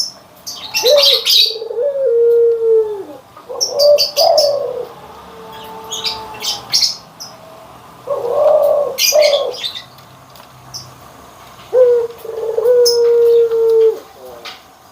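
Puter (Barbary dove) cooing: four long, low coos, each starting with a short rise and then held, a few seconds apart. Short high chirps of small birds come between the coos.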